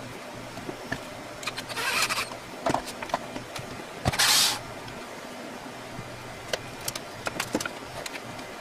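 Cordless drill driver running in two short bursts, about two seconds in and again about four seconds in, taking screws out while gear is stripped off a wall. Scattered clicks and knocks of parts being handled come between the bursts.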